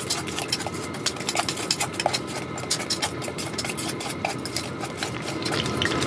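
A fork stirring beer batter in a stainless steel camping mug: quick, irregular clinks of metal against metal, over a steady low hum.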